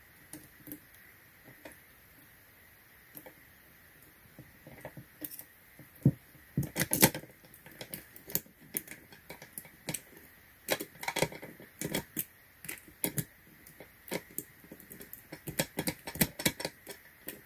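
Metal wafer pick jiggled up and down in the keyway of a Club steering wheel lock, giving irregular small metallic clicks and rattles that grow busier from about four seconds in.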